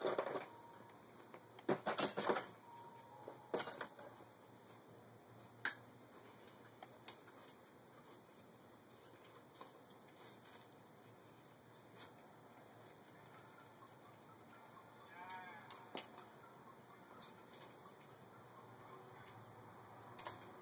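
Sharp metallic clinks and knocks of hand tools on bicycle parts during the teardown of a lowrider bike, several in the first six seconds and only faint ticks after that. About fifteen seconds in there is a brief wavering call-like sound.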